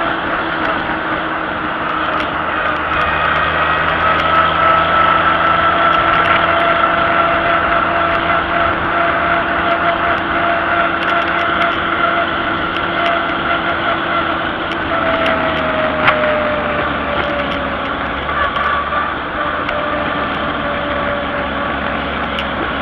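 Old farm tractor's engine running steadily as the tractor drives along the road, heard from on board, with one sharp knock about two-thirds of the way through.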